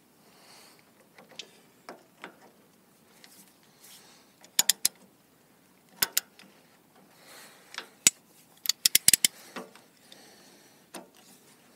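Sharp metal clicks and clinks of a gland nut wrench and ratchet handle being fitted and worked on a hydraulic cylinder's gland nut. The clicks come in small groups, with a quick run of about five a little past halfway.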